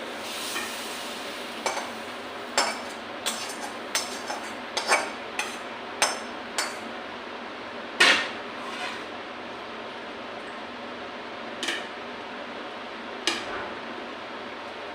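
Metal spoon clinking and knocking against a cooking pot and dishes: a quick irregular run of sharp knocks in the first half, then a few more spaced out near the end.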